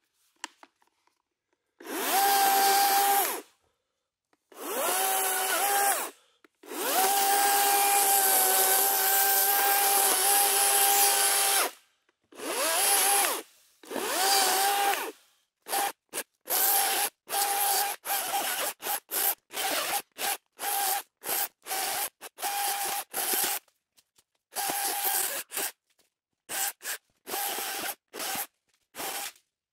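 Battery-powered chainsaw cutting a fallen tree, its motor whining only while the trigger is held and going silent in between. Three longer cuts come in the first half, the longest about five seconds, then a string of short quick bursts more than once a second.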